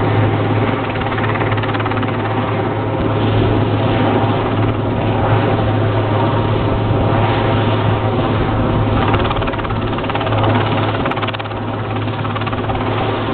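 Super Puma twin-turbine helicopter hovering overhead with a load on its sling line: a loud, steady rotor and turbine sound that holds even throughout.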